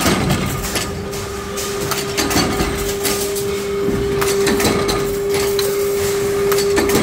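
Automatic power press running, punching parts from coiled steel strip with repeated clanking strokes over a steady hum.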